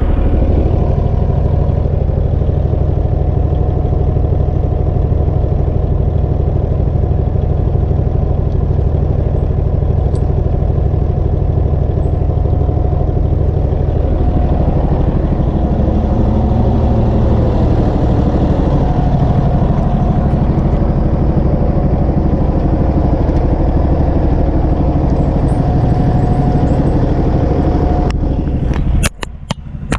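Wood chipper's engine running steadily. Near the end a few sharp clicks come as the sound briefly drops out.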